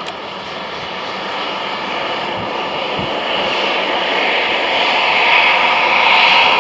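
Airbus A320's twin jet engines running at taxi power, a steady rushing whine that grows steadily louder as the airliner turns to point its engines and nose toward the listener.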